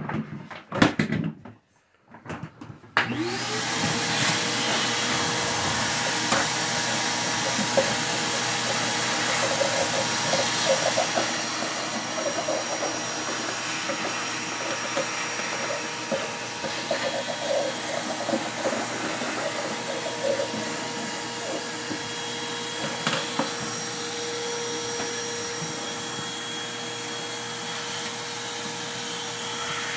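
A few handling knocks, then a vacuum cleaner switched on about three seconds in, its motor spinning up to a steady whine and running on while it cleans dust off PC case fans. Irregular rattling in the middle as the nozzle works over the fans.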